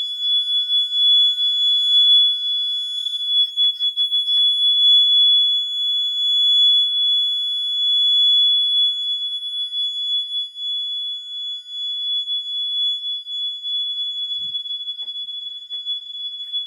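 Gentex GX90 fire alarm horn sounding one unbroken high-pitched electronic tone, like a smoke alarm but continuous rather than the temporal-3 beep code. A few faint clicks sound around four seconds in.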